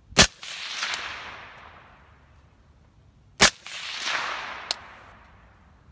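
Two suppressed gunshots from a 5.56 AR-15 pistol fitted with a Gemtech suppressor, about three seconds apart. Each sharp report is followed by a rolling echo that fades over about a second and a half.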